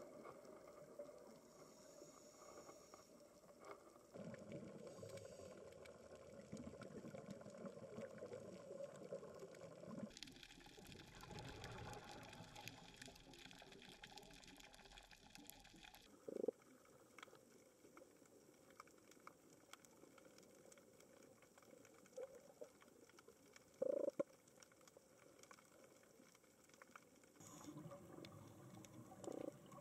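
Faint, muffled underwater sound through a dive camera's housing, changing with each cut between clips, with a hissing stretch in the middle and two short knocks.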